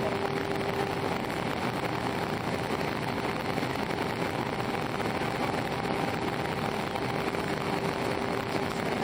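Steady jet engine and airflow noise of an Airbus A319 heard inside the passenger cabin, an even roar with a faint steady hum running through it.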